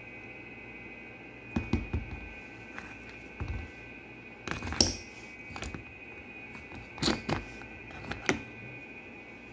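Old dosing-pump gear motors and their metal housings being picked up and handled: irregular clicks and knocks of metal parts on a bench, about six clusters, the loudest a little before the halfway point. A steady high tone runs underneath.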